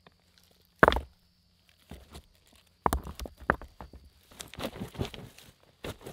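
Rocks knocking together as they are set in place for a fire pit. There is one sharp clack about a second in and another near three seconds, followed by footsteps and rustling in dry leaves and twigs with a few small knocks.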